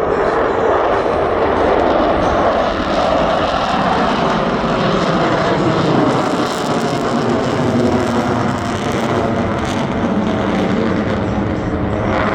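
Jet engine noise from Blue Angels F/A-18 Hornets in flight: a loud, continuous rushing sound that is strongest at the start and eases slightly partway through.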